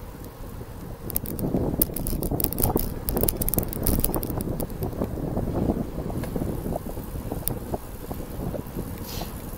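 Wind buffeting the camera's microphone on a moving bicycle: a steady low rumble with scattered sharp clicks.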